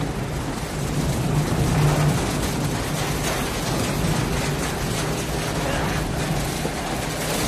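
Hailstorm: hail and heavy rain pelting down around a pickup truck, a dense hiss full of small sharp impacts over a steady low hum.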